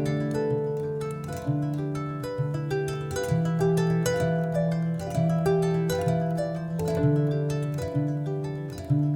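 Instrumental music: a steady run of plucked, harp-like notes, each fading after it is struck, over a repeating bass line.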